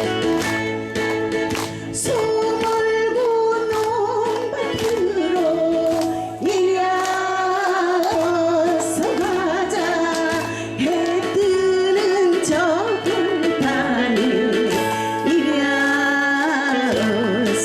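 A Korean folk-style song sung by a singer with a strongly wavering, ornamented voice over a backing track with a steady beat and bass.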